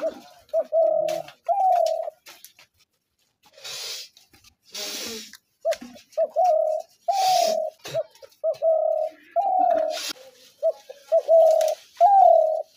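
Spotted dove cooing: repeated phrases of short, low coos in two bouts, with a pause of about three seconds between them. A few short bursts of hiss fall between the phrases.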